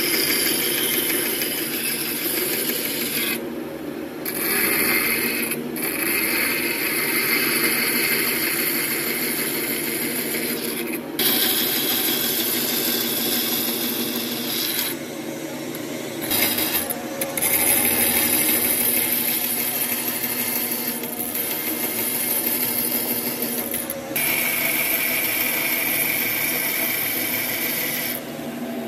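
Bandsaw running and cutting a row of short slots into the edge of a thick wooden block, a steady machine hum under the hiss of the blade in the wood. The cutting hiss drops out briefly several times as one cut ends and the next begins.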